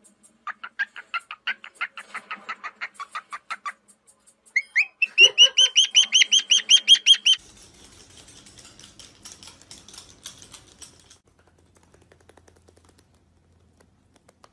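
A small pet parrot chirping in two quick runs of rapid, repeated chirps, the second run louder and higher; after them only faint scuffling and little else.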